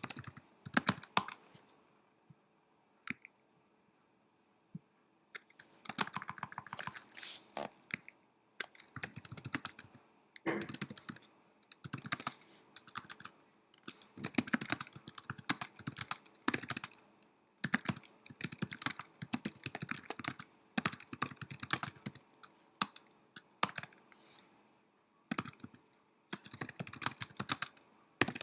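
Typing on a Mac laptop keyboard: quick runs of key clicks in bursts of a second or two, with short pauses between words and a longer pause a few seconds in.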